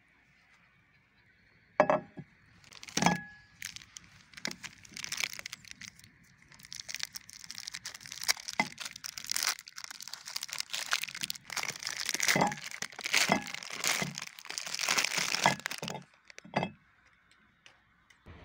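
Clear plastic wrap being torn and crinkled off a multipack of bar soap: a long run of dense crackling, with two sharp knocks before it starts and one after it stops.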